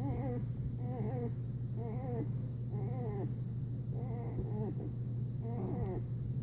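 Newborn Newfoundland puppy whimpering: a string of short squeaky cries, about one a second, each rising and falling in pitch, over a steady low hum.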